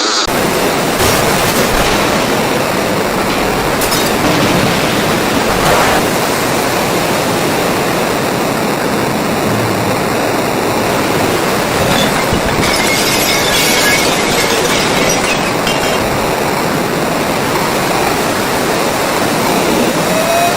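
Loud, steady rushing noise that cuts in abruptly, with a few brief knocks in the first seconds.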